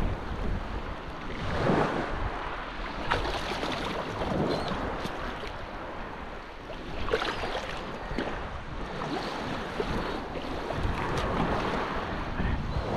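Shallow surf washing and splashing around a wading angler's legs, surging irregularly every few seconds, with wind rumbling on the microphone.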